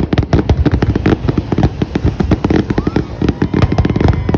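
Aerial fireworks shells bursting in a dense, rapid string of booms and bangs, many a second, with no break.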